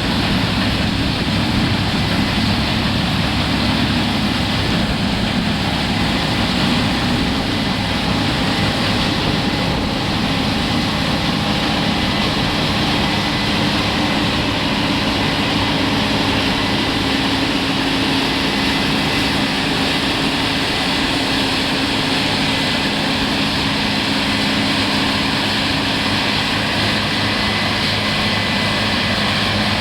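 Combine harvester working in a barley field: a steady, loud engine drone with a constant hum and a few held whining tones.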